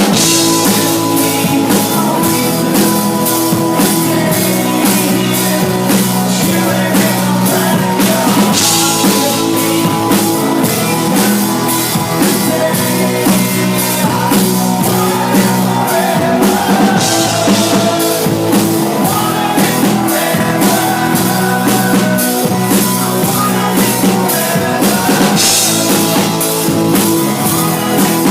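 Rock band playing live: a drum kit keeps a steady beat under guitars and vocals, with cymbal crashes about every eight seconds. It is loud and rough, picked up by an iPod Touch's built-in microphone.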